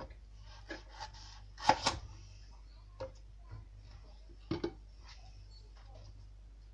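Chef's knife cutting a green bell pepper on a plastic cutting board: scattered sharp knocks of the blade on the board, the loudest a pair a little under two seconds in and another pair about four and a half seconds in.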